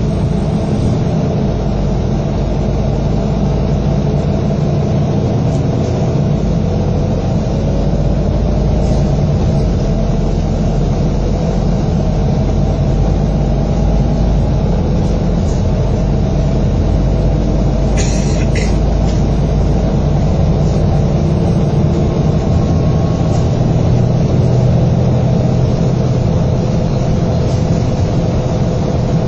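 Double-decker bus's diesel engine and drivetrain heard from inside the upper deck while under way: a steady low drone, with a faint whine rising in pitch over several seconds. A short click-like noise about eighteen seconds in.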